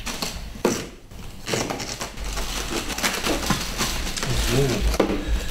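Cardboard box and the packaging inside it being handled as things are pulled out: rustling and scraping with several sharp knocks.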